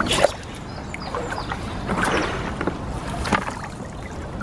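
Lake water sloshing and lapping as a common carp shifts about in a landing net held in the shallow margin, with a few soft swishes.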